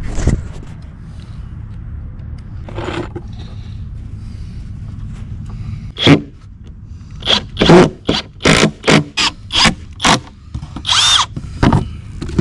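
Carpentry tool noise on a board being fitted as a new sill plate: a few isolated sharp knocks, then about ten short, loud bursts in quick succession over the second half.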